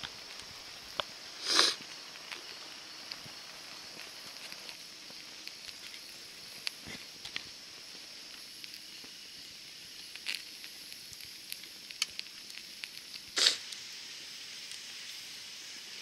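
Burning pine sap flame under a stainless steel bottle, hissing steadily with scattered small pops and crackles, and two brief louder sputters, one a couple of seconds in and one near the end.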